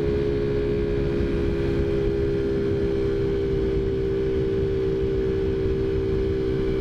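Taotao Zummer 50cc four-stroke scooter engine running at a steady cruise, one even drone that does not rise or fall. The air cleaner's intake noise is so loud it is like screaming inside the helmet.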